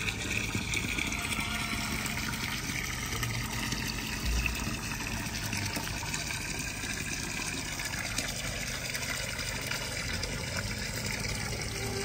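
Small garden waterfall: a steady stream of water pouring from a rock spout and splashing into a shallow stone-lined pool. A brief low thump about four seconds in.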